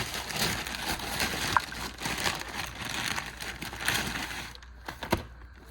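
Packaging crinkling and rustling as items are dug out of a parcel, then a few sharp clicks near the end.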